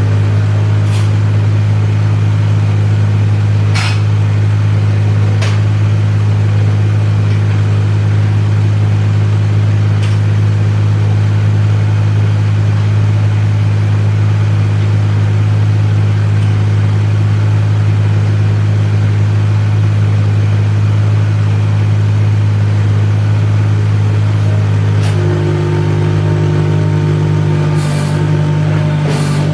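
An engine running steadily at constant speed, with a few sharp clicks and knocks over it. Near the end its note changes as the engine speed shifts.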